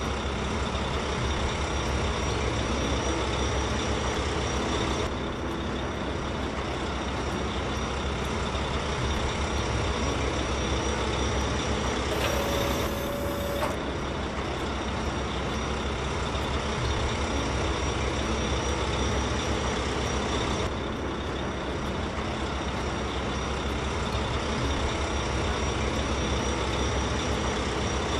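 Steady diesel engine noise of heavy machinery running, excavators and a dump truck at work. About twelve seconds in comes a brief hiss with a held tone, lasting about a second and a half.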